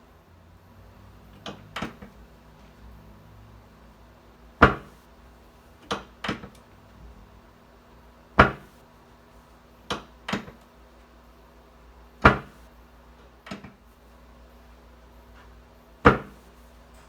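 Chiropractic drop table: the drop section falls with four loud, sharp clacks about four seconds apart under the adjusting thrust. Before each clack comes a pair of lighter clicks as the drop piece is reset.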